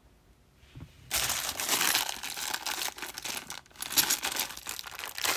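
A clear plastic coin bag being torn open and crinkled by hand, a dense crackling that starts about a second in.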